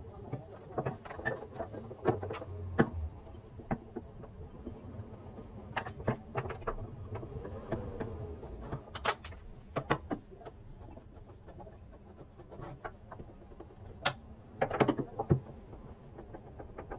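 Irregular clinks, clicks and knocks of hand tools and metal parts being handled during washing machine repair work, with a cluster of sharper knocks near the end.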